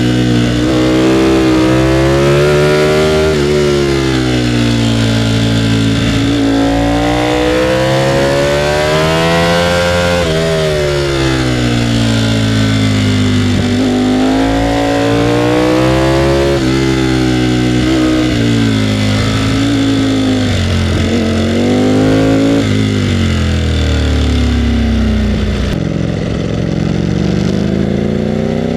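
Ducati Panigale V4R's V4 engine on the move, its revs climbing and falling again and again through acceleration and gear changes. Near the end it drops to a low, steady note.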